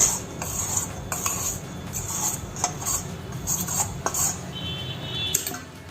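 A kitchen utensil mixing in a bowl: repeated scraping strokes about two a second, with light clinks. A short high squeak comes near the end.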